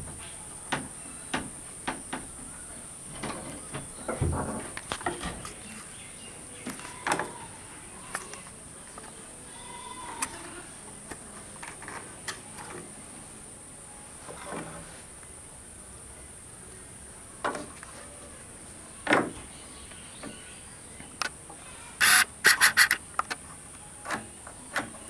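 Light scattered knocks and clicks of a steel door hinge being handled and held against a wooden door frame, with a quick run of sharp metallic clicks near the end. A steady high insect drone runs underneath.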